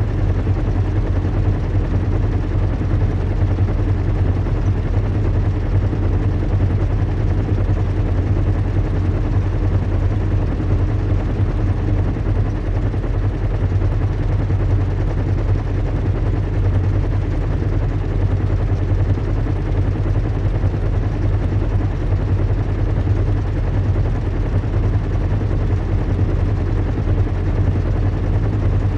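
Recreated drone of a zeppelin's engines in flight: a steady low rumble with a constant hum beneath an even wash of noise.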